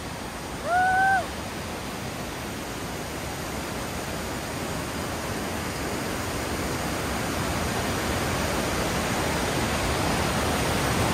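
The 83-metre Montmorency Falls rushing: a dense, steady roar of falling water that grows slowly louder. A short vocal exclamation comes about a second in.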